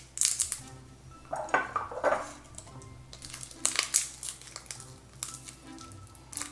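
Garlic cloves being peeled by hand: the papery skins crackle and crinkle in irregular short clicks.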